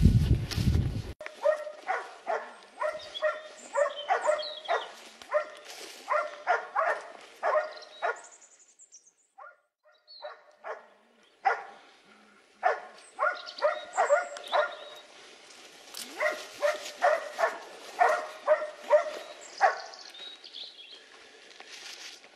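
A loud low boom right at the start, then a hunting dog barking repeatedly, about one to two barks a second. The barking pauses for a few seconds midway, then resumes.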